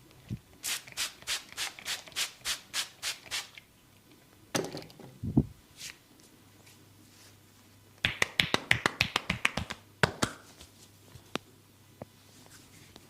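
Massage skin cracking: the masseur's hands snap sharply on bare skin. First comes an even run of about ten cracks over three seconds, then a dull thump, then a quick flurry of cracks, and a few single ones near the end.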